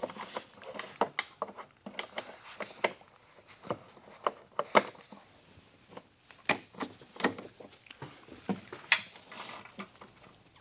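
Irregular metallic clicks and taps of an Allen-key tool being fitted to and worked against the transmission fill plug of a BMW ZF 6HP26 automatic gearbox, with the plug done up too tight to break loose by hand.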